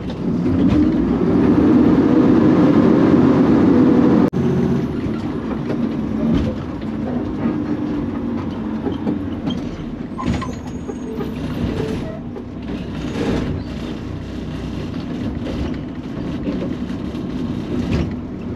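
Automated side-loader garbage truck heard from inside the cab: the truck runs loudly for the first four seconds while the hydraulic arm sets the emptied cart back down, then the sound drops off sharply. The truck then runs at a lower level as it drives on, with scattered knocks and rattles.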